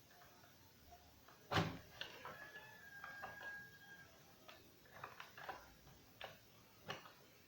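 A run of sharp clicks and knocks from hands working on a microwave oven and its push-button panel, with one loud knock about a second and a half in. A faint steady tone sounds briefly in between.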